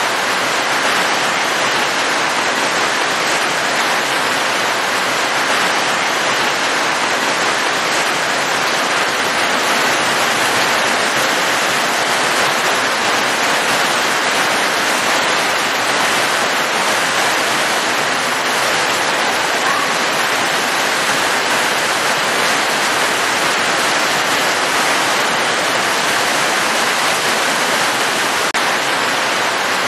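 Steady rain falling, an even, unbroken hiss with no single drops or gusts standing out.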